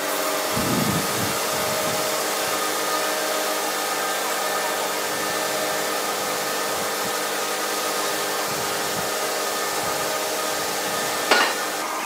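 Sawmill band-saw headrig and log carriage running: a steady, even machine noise with several faint steady hums. A single sharp knock comes near the end.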